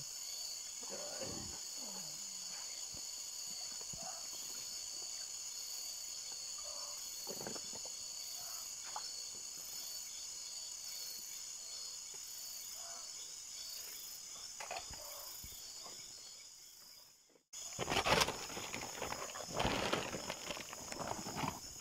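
Steady, high-pitched chorus of night insects along a stream. After a sudden break about seventeen seconds in, a woven plastic sack is rustled and handled close up, louder than the insects.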